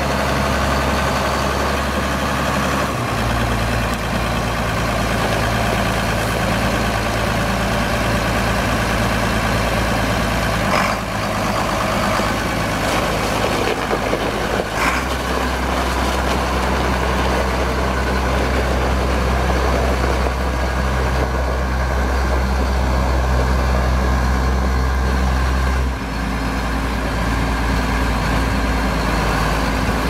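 Case IH 7140 Magnum tractor's six-cylinder diesel running as the tractor drives slowly, the engine speed shifting up and down a few times.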